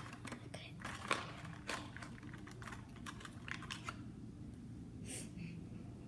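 Quick light clicks and taps of small plastic toy pieces being handled and set down, irregular and close together for about four seconds, then a brief rustle near the end.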